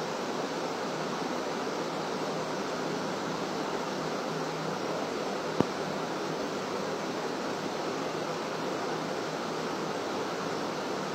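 Steady, even hiss with no voices, and a single sharp click about five and a half seconds in.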